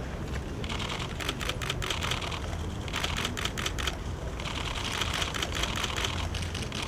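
Camera shutters firing in rapid bursts, three runs of quick clicks within a few seconds, over a steady low rumble.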